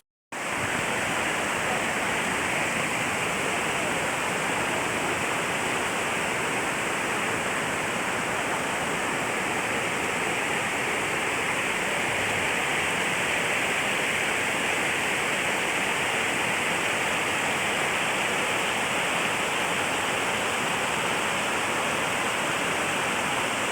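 Waterfall: a steady, loud rush of falling water, with no change in it after a brief dropout at the very start.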